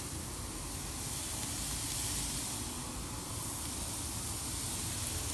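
Beef brisket sizzling on a wood-fired grill: a steady hiss.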